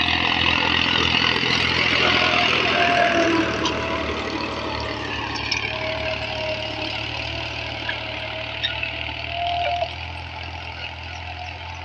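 Powertrac 435 tractor's diesel engine running steadily under load as it pulls a cultivator through the soil, a little quieter after the first few seconds.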